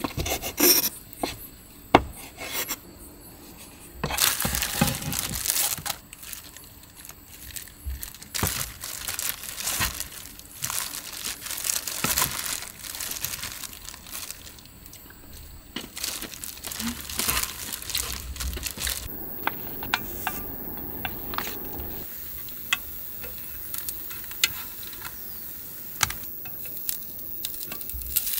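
Kitchen handling sounds: a knife tapping on a wooden cutting board as cooked squid is sliced, then plastic-gloved hands crinkling and squelching as they toss spicy squid salad in a wooden bowl. From about two-thirds through, a steady sizzle of flat dumplings frying in a small pan on a portable gas stove.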